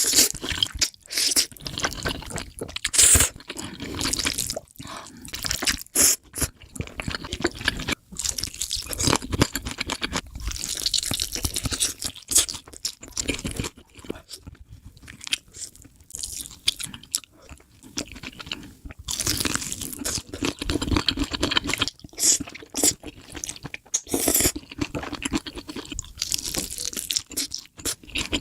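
Close-miked mukbang eating sounds: a person crunching and chewing food in irregular bites, with some longer wet noisy stretches.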